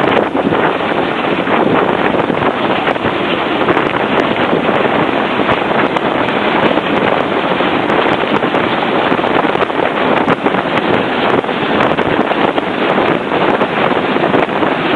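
Chinook tandem-rotor helicopter hovering close overhead and lifting an underslung load, its rotors and engines making a loud, steady noise, with heavy rotor downwash buffeting the microphone.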